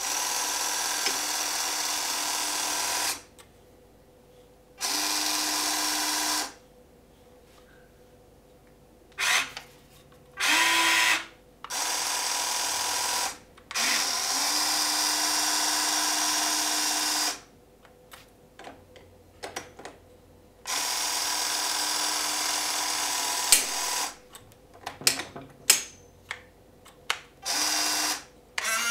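Electric motors of an Amewi 22501 1/14 RC excavator running in repeated bursts of one to four seconds, with short pauses between, as the log grapple is opened, closed and rotated from the transmitter. Short ticks and clatters follow near the end.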